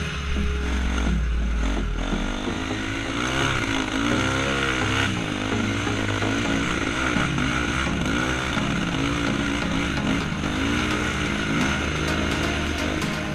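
Dirt bike engine revving up and down again and again under throttle while riding.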